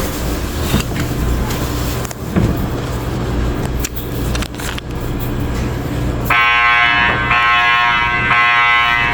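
Low rumbling and handling noise with a few knocks, then about six seconds in a school fire alarm horn starts sounding, a loud harsh buzzing tone that drowns everything else out.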